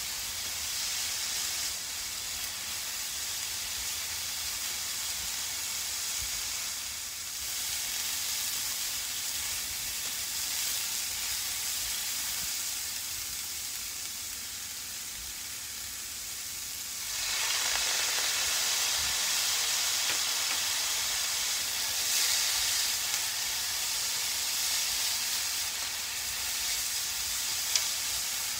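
Julienned burdock root and carrot sizzling in a hot frying pan as they are stir-fried. The sizzle grows louder and fuller about seventeen seconds in, when a seasoning goes into the pan.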